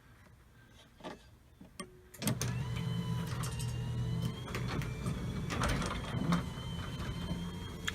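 Electric garage door opener starting up about two seconds in and running steadily as it drives the door, with a couple of faint clicks just before it starts.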